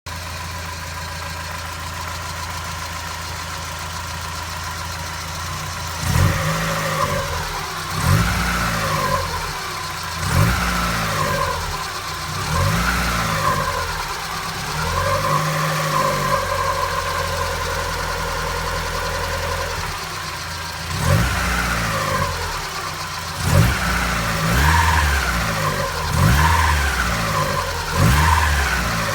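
1993 Mazda MX-5 NA's inline-four engine idling steadily, then revved in a series of short throttle blips, each rising and falling back within about a second, with a steadier stretch in the middle before the blips resume.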